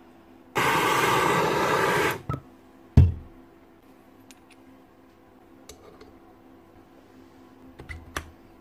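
A loud burst of rushing noise with a hum in it for about a second and a half, then a single sharp, heavy knock, then light clicks and clinks of metal gears being set into the Hilti TE905 demolition hammer's gearbox housing.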